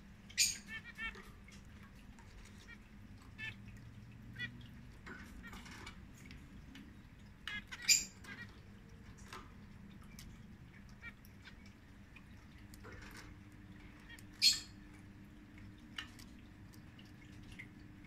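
Caged zebra finches calling: scattered short chirps throughout, with three louder sharp calls about half a second in, near the middle and about two-thirds of the way through.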